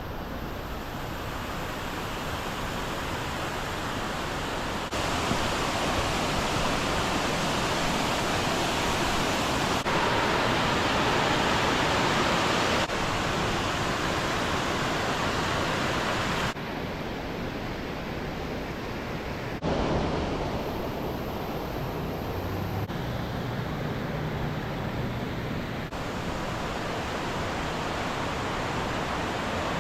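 Waterfall (Cascade Falls) rushing: a steady noise of falling water, its loudness and brightness jumping abruptly up or down every few seconds.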